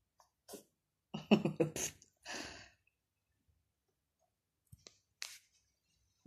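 Persian cat sneezing several times in short bursts, the loudest cluster about a second in. The sneezing is set off by sniffing fresh catnip.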